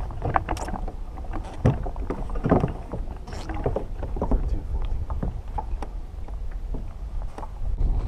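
Wind buffeting the microphone and water slapping against a kayak, with scattered knocks and rustles as a freshly caught tautog is swung aboard on the line and handled.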